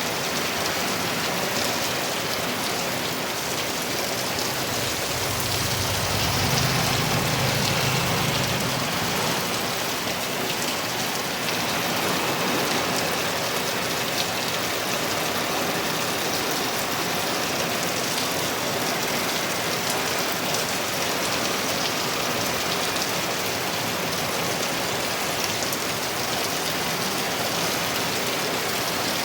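Heavy rain pouring steadily, a dense even hiss. About six seconds in, a low rumble swells and then fades over a few seconds.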